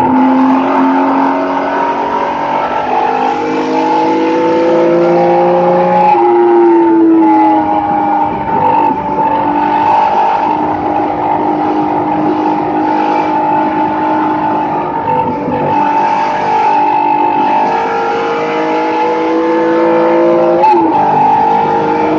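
Race car engine heard from inside the cockpit, pulling hard under load. Its pitch climbs steadily through each gear and drops sharply at an upshift about six seconds in and again near the end, with a brief dip in between.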